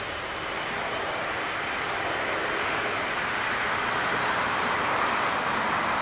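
Boeing 787-8's Rolls-Royce Trent 1000 turbofans running on the take-off roll: a steady rush of jet noise that slowly grows louder.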